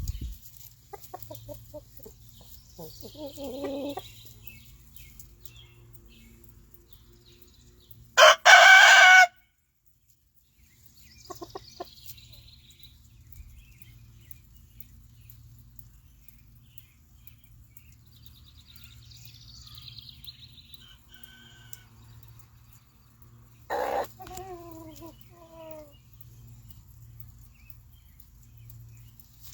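Backyard chickens clucking, with a rooster crowing once, loud and about a second long, some eight seconds in; faint high chirps come and go.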